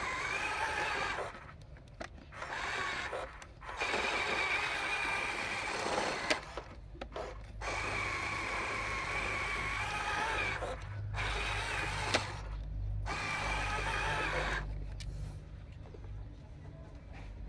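Huina 1573 RC dump truck's electric drive whining in stop-start spurts of one to three seconds, with short gaps between, falling away about fifteen seconds in. A low rumble runs under the later spurts, and there are two sharp clicks.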